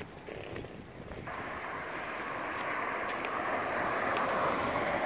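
Street traffic noise: a passing vehicle's steady rushing sound that sets in about a second in and grows slowly louder.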